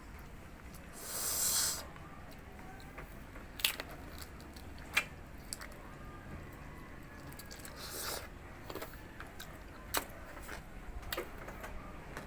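Biting and chewing crispy deep-fried pork face: a loud crisp crunch about a second in, then scattered sharp crackles and clicks of chewing.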